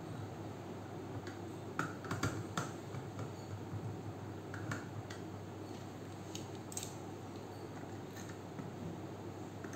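Light plastic clicks and taps as wires are pushed into the terminal block of a Smarteefi smart-switch module while it is handled. The clicks come in small scattered clusters, the busiest about two seconds in, over a faint steady low hum.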